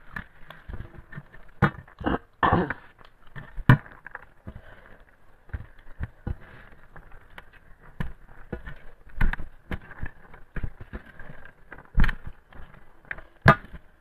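A hand mixing and scooping rice and curry on a stainless steel plate: irregular sharp clicks, taps and scrapes as fingers and a ring strike and slide on the metal, the loudest knocks about four seconds in and twice near the end.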